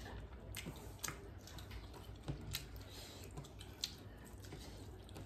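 Faint eating sounds: chewing and mouth smacks, with a few sharp little clicks, as fingers mix rice and curry by hand.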